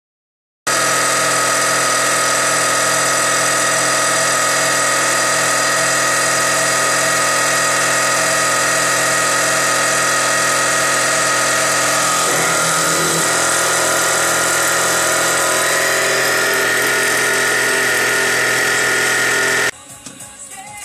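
Terco CNC45 milling machine's spindle running with an end mill cutting aluminium: a loud, steady machining whine that starts abruptly just under a second in. The pattern of tones shifts about midway, and the sound drops off sharply near the end.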